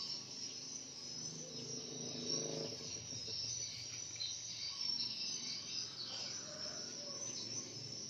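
Crickets chirring in a steady high-pitched chorus, with irregular lower shuffling and handling sounds underneath.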